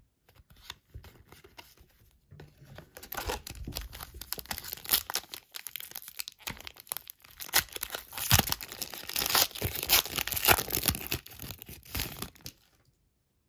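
Shiny wrapper of a 2021 Sage Hit Premier Draft football card pack crinkling and being torn open: a dense run of sharp crackles from about three seconds in, stopping shortly before the end. A few faint clicks of cards being handled come before it.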